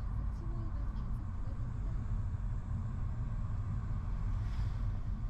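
Car driving along at steady speed: a continuous low road and engine rumble.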